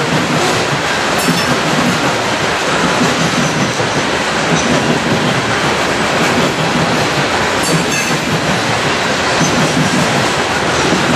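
BNSF coal train's hopper cars rolling past steadily, their wheels running on the rails and clicking over the rail joints.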